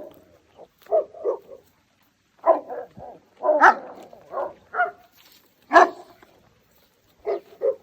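Dog barking, about a dozen short barks in irregular bunches with pauses between.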